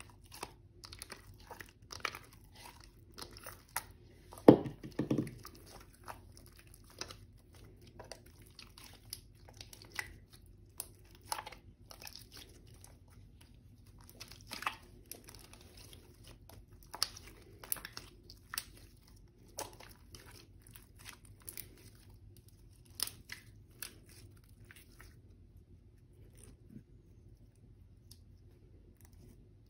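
Slime being kneaded and squished by hand, giving irregular sticky clicks and pops, with one louder low thud about four seconds in.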